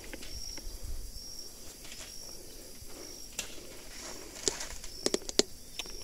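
An insect, like a cricket, gives a short high chirp about once a second, with outdoor ambience behind it. In the second half come several sharp snaps and clicks, the loudest a quick cluster near the end, from someone handling brush and twigs in the undergrowth.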